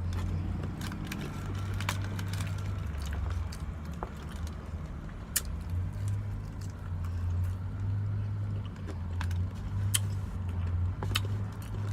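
Person chewing and lip-smacking fried chicken, a scatter of sharp wet mouth clicks, over the steady low hum of a truck's idling engine.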